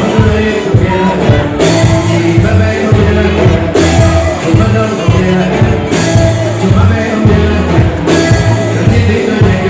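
Live band music with a singer, loud and continuous, with a steady beat and heavy bass.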